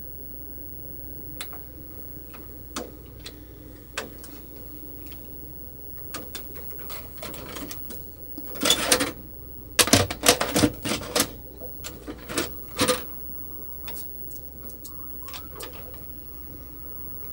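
VHS deck of a Toshiba TV/VCR combination being stopped, ejecting a cassette and taking it back in: a few separate clicks, then a busy run of loud plastic clatters and mechanical clunks in the middle as the cassette is handled and loaded, over a steady low hum from the set.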